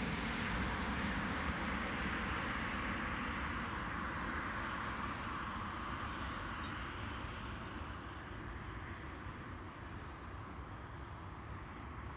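Boeing 767-300 twin jet engines at takeoff power, a steady jet noise that slowly fades as the airliner moves away.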